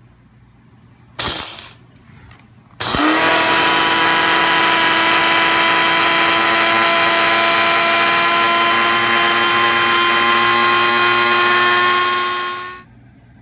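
Blender grinding cooled toasted glutinous rice into roasted rice powder: a short pulse about a second in, then a steady run of about ten seconds whose whine rises as it comes up to speed, stopping near the end.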